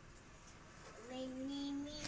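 A child's voice singing one long held note that rises slightly. It comes in about halfway through, over faint room tone.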